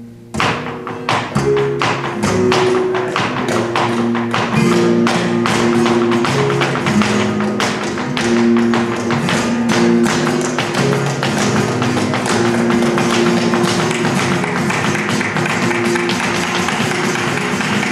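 Flamenco music with rapid, sharp taps throughout: heeled flamenco shoes striking a wooden floor in footwork. The taps start suddenly about half a second in.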